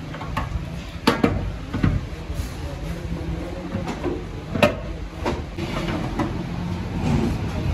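Sharp metal knocks and clanks as a cast Isuzu truck differential housing is handled and set down onto a steel brake drum, a few loud ones about a second in and midway, over a steady low rumble.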